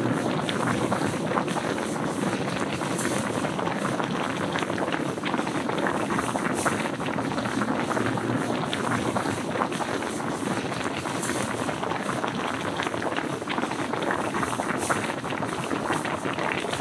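A wide pot of kimchi-jjim (pork and kimchi stew) at a hard rolling boil over a gas burner: a steady, dense bubbling with fine crackles.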